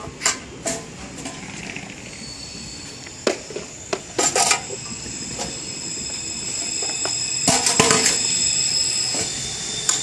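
A train pulling in with a high, steady squeal that swells and is loudest about eight seconds in. Short knocks and rattles come from a parcel locker's metal door and a cardboard box being handled.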